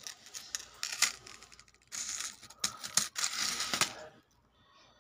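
Thin gold bangles clinking and jingling against each other as they are picked up and handled in a pile, with sharp metallic clicks and short rattling bursts that stop about four seconds in.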